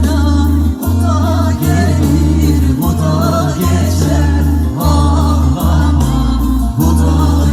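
Music: a song with a solo voice singing a wavering melody over a loud, steady bass beat.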